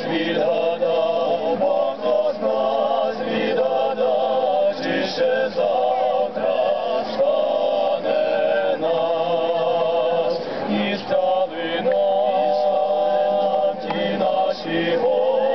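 A five-man vocal ensemble singing a Ukrainian song together in harmony, into microphones.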